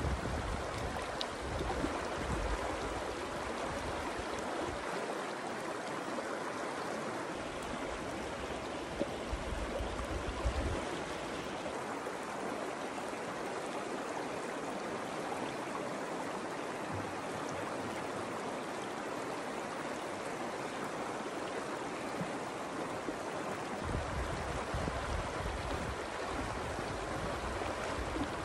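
Shallow river running over rocks in small riffles: a steady rush of flowing water, with a low rumble coming and going.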